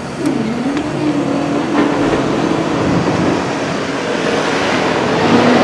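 A road vehicle's engine pulling away, its note dipping and then holding fairly steady, with traffic noise building up behind it.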